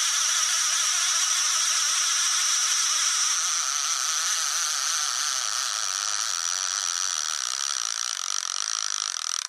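A fishing reel whirring steadily as its spool spins fast, growing slightly softer after a few seconds.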